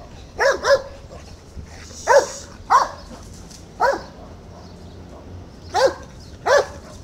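A dog barking: about seven short, sharp barks spaced irregularly, the first two close together.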